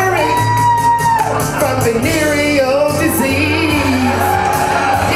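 A singer's voice on a stage microphone, with a recorded backing track and a steady bass underneath. The singer holds one long high note near the start and another long note near the end.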